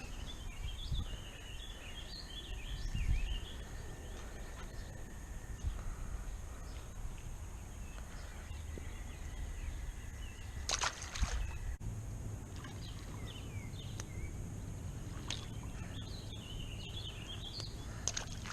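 Songbirds chirping in short warbled phrases over a low steady rumble, with a brief cluster of sharp clicks about eleven seconds in.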